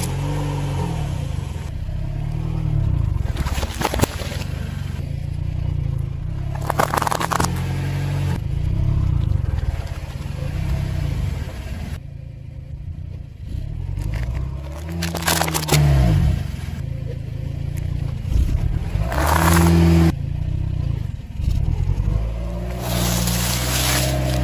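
Car tyre rolling slowly over and crushing a series of objects, among them an aluminium soda can, a donut and a stack of rice cakes. A steady low rumble from the car and tyre runs throughout, broken by several short crunches and bursts as the objects give way.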